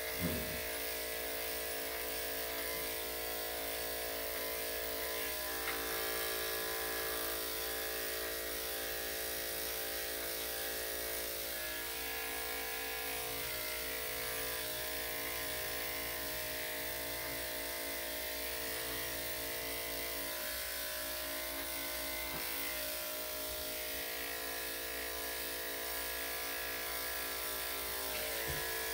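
Corded electric dog grooming clippers running with a steady, even buzz as they shave a small dog's coat.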